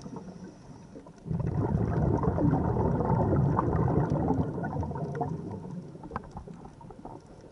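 Scuba diver exhaling through a regulator heard underwater: after a quieter first second, a dense rush of bubbles breaks out suddenly and tapers off near the end.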